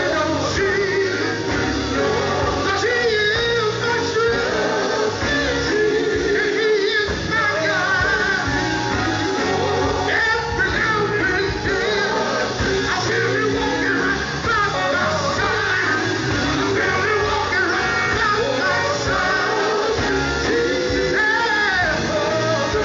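Gospel vocal group singing live, backed by a band of electric guitar, bass guitar, drums and keyboards.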